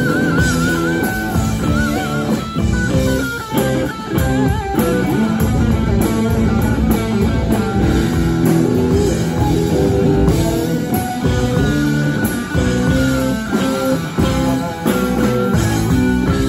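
A live rock band playing an instrumental passage with no singing: electric guitar lead over a second guitar and drums, opening on a high guitar note held with wide vibrato.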